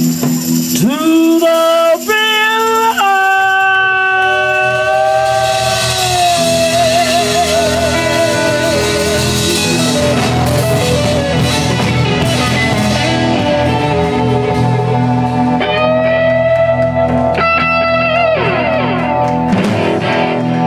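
Live blues-rock band playing: long held notes that slide up into pitch, one with a wide vibrato, over electric guitar and drums with cymbals.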